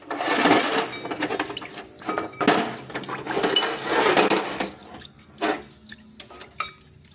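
Hands washing diesel injection-pump timer parts in a tray of cleaning fluid: liquid sloshing and splashing, with metal parts clinking against each other. It quietens after about five seconds, leaving a few separate clinks.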